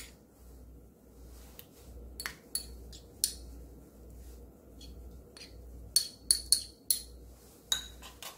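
Metal spoon clinking and scraping against ceramic as salted shrimp are spooned from a small bowl into beaten egg: a scatter of sharp clinks, most of them between about six and eight seconds in.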